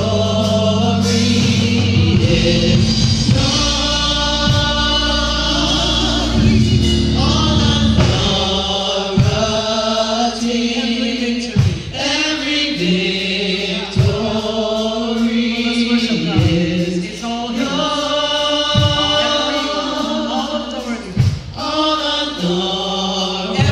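Gospel praise team of several singers on microphones singing in harmony, backed by a live band with bass guitar. The bass is heavy for the first third, and sharp beats keep a steady pulse.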